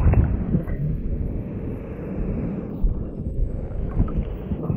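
Wind buffeting the microphone: a gusty low rumble that rises and falls.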